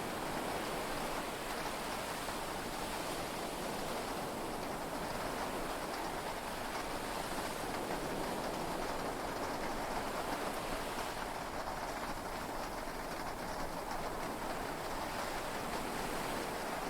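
Heavy rain on a yacht cabin, heard from inside as a steady, even hiss with no thunderclaps.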